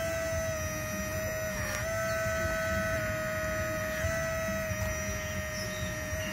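Hydraulic pump of an RC Cat 336D excavator whining steadily at one pitch, dipping briefly a couple of times as the hydraulics take load.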